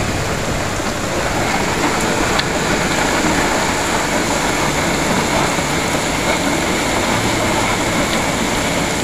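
Heavy rain pouring down: a loud, steady rushing hiss.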